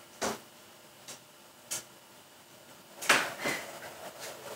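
A cat moving about on a desk: a few light taps in the first two seconds, then a louder scuffling noise starting about three seconds in.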